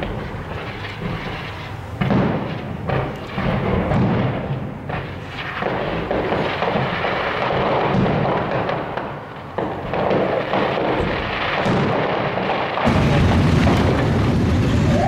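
Fireworks going off: repeated bangs from bursting shells and crackling, with their rumble overlapping. About two seconds before the end the sound cuts abruptly to a steady din of a street crowd among motorcycles.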